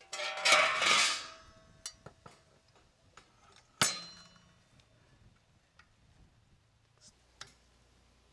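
Stainless steel drip pan clattering and ringing against the steel rod of a vertical rotisserie spit as it is slid into place. About four seconds in comes one sharp metal clank that rings on, and near the end a few light metallic clicks as a spit fork is clamped on the rod.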